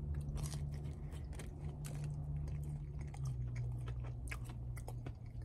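A man biting into and chewing a buttery soft pretzel: irregular wet mouth clicks and smacks from the chewing.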